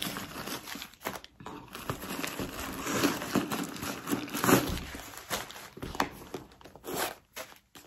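White paper stuffing crinkling and rustling in irregular bursts as it is pulled out from inside a leather handbag, loudest about halfway through.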